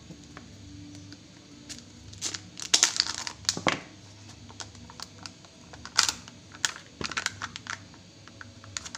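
Plastic wrapping and printed lid of a chocolate surprise egg crinkling and crackling as fingers peel them off, with scattered clicks and two louder spells of crackling, about three seconds in and about six seconds in.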